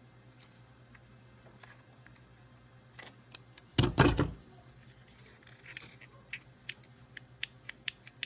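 Hand work on the plastic latch parts of a Toyota Tacoma center console. There is a loud double knock about four seconds in, then a run of sharp light clicks that come faster near the end.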